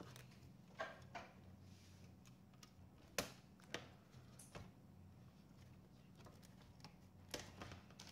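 Dell Vostro 5590's bottom cover clicking as its snap clips are pried loose and it is lifted off by hand: a few scattered sharp clicks, the loudest a little after three seconds in, over a faint low hum.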